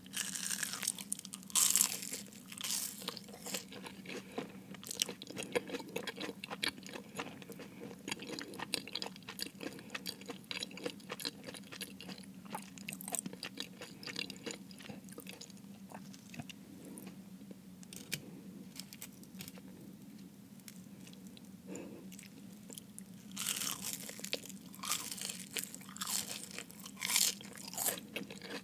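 Close-miked eating of a Jamaican beef patty. The flaky pastry crust crunches at a bite about a second in and again in a cluster near the end, with softer chewing in between.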